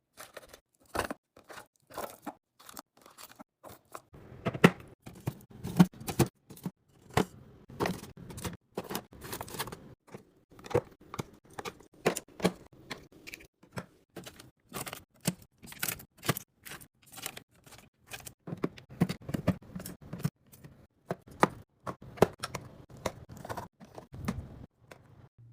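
Handling sounds of a fridge being restocked: a dense run of sharp taps, clicks and knocks, several a second, with some rustling and scraping as packaged food and containers are picked up and set down.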